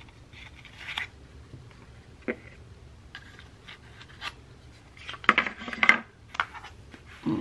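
Apple AirPods Max headphones being handled and turned over in the hands: scattered light clicks, taps and rubbing, with a louder cluster of clicks about five to six seconds in.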